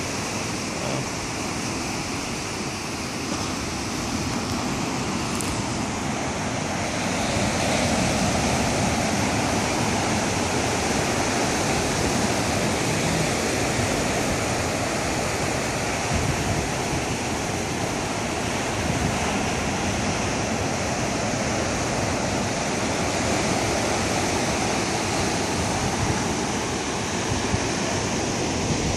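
Ocean surf breaking and washing over a rocky, stony shore: a steady rushing that grows a little louder about seven seconds in.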